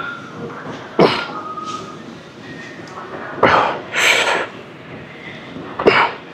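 Forceful, hissing exhalations from a man straining through pec deck fly reps. A sharp breath comes about every two and a half seconds, in time with the reps, with a double breath a little past the middle.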